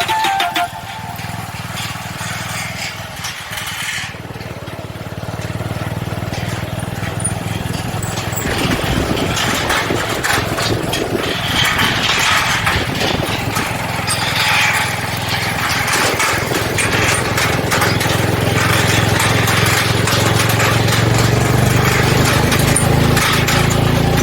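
Motorcycle engine running on the move, with wind and road noise over it, getting louder through the second half.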